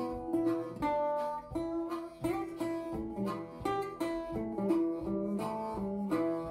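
Background music of plucked and strummed acoustic guitar, with a quick run of notes.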